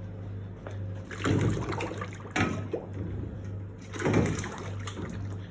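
Water sloshing and splashing in three surges, about a second in, near two and a half seconds in and about four seconds in, as something is put into the cleaning solution. A steady low hum runs underneath.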